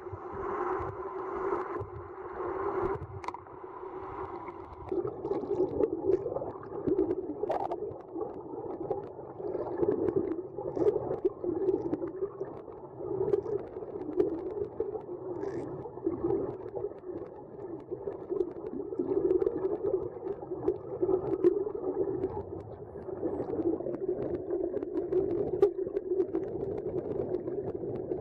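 Underwater sound picked up by the camera: a steady, wavering hum, with a few faint clicks here and there.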